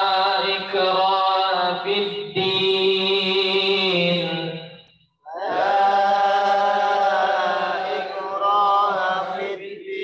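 A man's voice reciting Quranic Arabic in the melodic tajwid style, chanting long drawn-out phrases with held, slightly ornamented notes. There is a short pause for breath about five seconds in.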